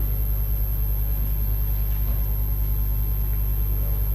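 Steady low hum and rumble of the assembly hall's background, picked up through its microphone system, with no other event standing out.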